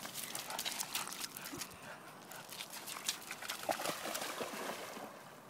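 Entlebucher mountain dog running through shallow river water: a quick patter of paw steps and splashes that fades toward the end.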